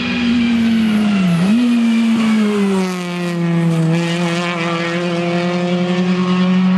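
Renault Clio Williams rally car's 2.0-litre four-cylinder engine running hard at high revs as the car passes through a bend. The revs dip briefly about a second and a half in, then climb back and hold high and steady.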